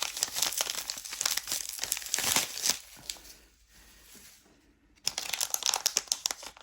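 Battery packaging crinkling and rustling as it is handled and unwrapped, pausing for about two seconds in the middle before starting again.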